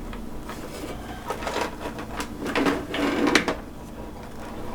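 Clattering and knocking of hard parts being handled inside an opened LED grow light, a run of irregular knocks in the middle, the loudest a little after three seconds in, over a steady low hum.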